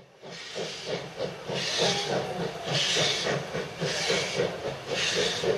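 Steam locomotive puffing, with a burst of steam hiss about once a second over a quicker low pulsing. It fades in at the start.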